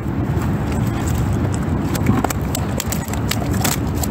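Irregular sharp clicks and taps, several a second from about a second in, over a steady low rumble.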